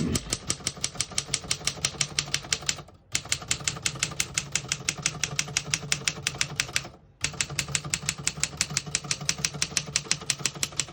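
Remington Torpedo portable typewriter typing in fast, even runs of keystrokes, about seven strikes a second, with two short breaks.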